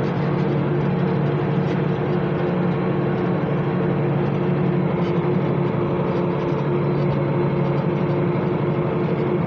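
International 886 tractor's diesel engine running steadily under load while pulling a hay baler, a constant drone.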